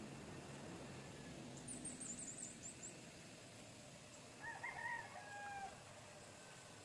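Faint bird calls: a quick run of high chirps early, then a single pitched call lasting about a second, a little past the middle.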